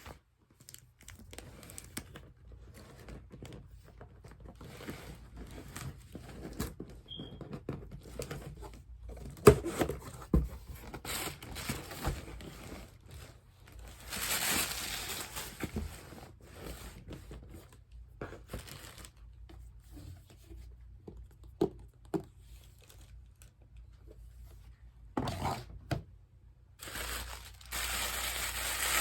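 Packaging being torn and crinkled by hand, with scattered clicks and knocks of items being handled. There is a longer spell of rustling about halfway through and again near the end, and a single sharp knock a third of the way in.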